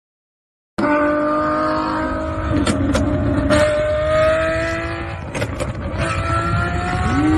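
Ferrari sports car engine accelerating, starting about a second in, its pitch climbing steadily as it pulls. A few sharp cracks come in the middle, the sound dips a little about five seconds in, then it climbs again near the end.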